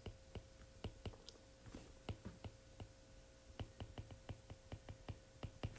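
Faint, irregular light clicks of a stylus tip tapping and dragging on an iPad's glass screen while writing by hand, several clicks a second.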